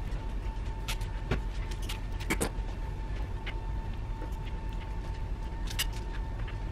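Scattered clicks and rustles of sticky tape and a phone being handled against a wooden door, over a low steady hum with a faint high whine.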